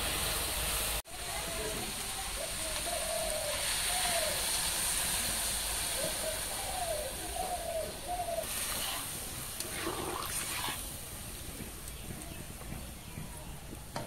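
Curry hissing steadily in an iron wok over a wood fire. About two-thirds of the way through, water poured from a mug splashes into the hot pan. Faint, repeated chirping calls are heard in the first half.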